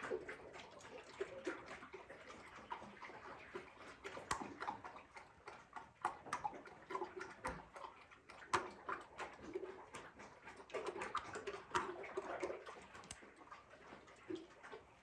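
Sow eating wet mash from a feed bowl: irregular wet smacking and slurping chews with sharp clicks, a few a second, faint.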